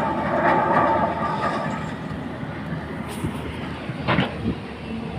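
Excavator running with a dense, steady rumble and metallic clatter, louder in the first second or so, with one sharp metal clank about four seconds in.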